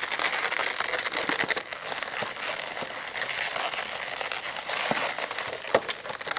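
Inflated latex modelling balloons being wrapped and twisted together by hand, rubbing and crackling against each other in a continuous dense run of small clicks.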